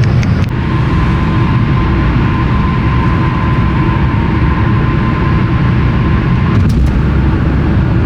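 Steady road and engine rumble inside a moving car's cabin, with a thin steady whine for most of it and a few light clicks near the start and about seven seconds in.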